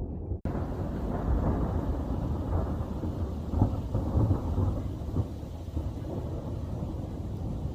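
Thundersnow: thunder in a heavy snowstorm, a long low rolling rumble lasting several seconds, with a few louder peaks in the middle.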